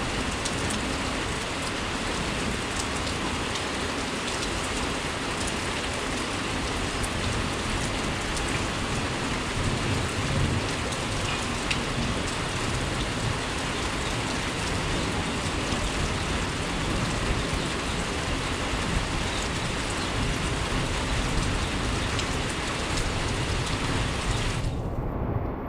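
Heavy tropical rain pouring down in a steady, even hiss, with a low rumble of thunder about ten seconds in. The hiss loses its high end abruptly just before the end.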